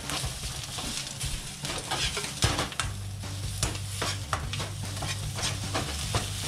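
Fried rice sizzling in a wok over a gas burner while a metal ladle stirs and chops through it, with many quick, irregular scrapes and taps of the ladle on the pan. A steady low hum joins about three seconds in.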